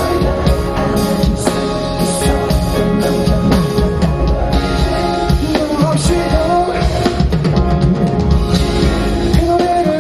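Rock-tinged pop ballad with a drum kit, guitar and bass, and a voice singing over it in places.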